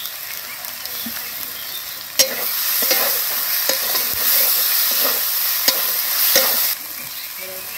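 Onions with freshly added ginger and cumin paste sizzling in hot oil in a metal karahi. About two seconds in, a flat metal spatula starts stirring, clicking and scraping against the pan, and the sizzle grows louder, then drops back near the end.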